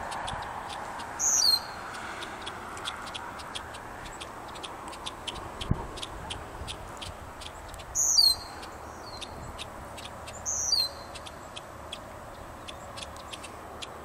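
A bird giving three short, sharp, high-pitched calls, about a second in, about eight seconds in and about ten and a half seconds in, over a steady background hiss.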